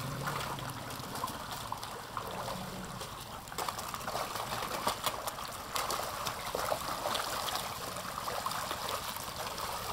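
Water splashing and slapping as a crowd of large fish thrash at the surface, feeding on thrown bread: many small irregular splashes over a steady watery wash.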